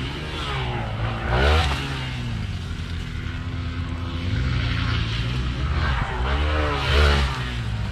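Dirt bike engines revving over a steady low engine hum. The pitch rises and falls twice, loudest about a second and a half in and again near the end.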